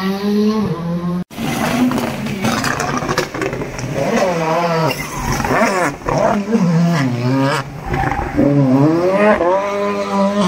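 Rally car engine revving hard through a tight corner, its pitch climbing and falling again and again with gear changes and lifts off the throttle. The sound breaks off abruptly about a second in, then the engine picks up again.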